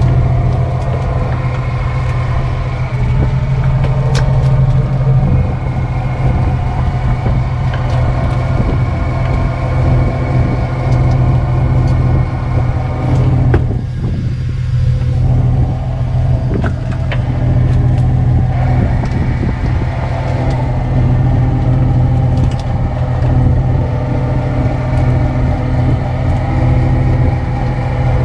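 Fishing boat's engine running steadily with a low hum, and a few brief knocks from work on deck.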